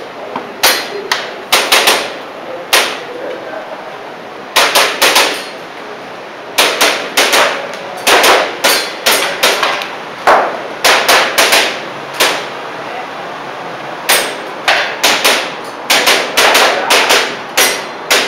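Airsoft pistol shots fired in quick strings of several sharp cracks, with short pauses between strings, as in a practical-shooting course of fire.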